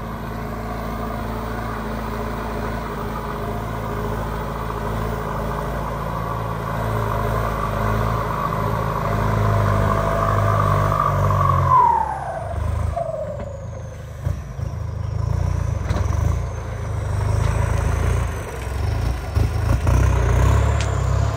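Kubota M7508 tractor's turbodiesel engine working under load while pulling a disc plough, running with a steady note and a turbo whistle. About halfway through, the whistle slides down in pitch and the engine eases off, then runs more unevenly with a faint high whine.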